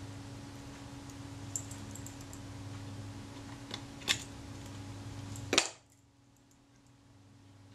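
Light, sharp metallic clicks of steel tweezers handling a tiny screw against the camera's metal body, a few scattered at first, then a distinct click about four seconds in and the loudest about five and a half seconds in. A steady low hum runs underneath and cuts off abruptly just after the loudest click.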